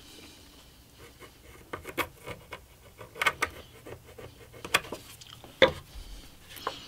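Pencil scratching on MDF as it is drawn round a bottle to mark a rounded corner, with light clicks and taps as the bottle and workpiece are handled, and one louder knock a little past halfway.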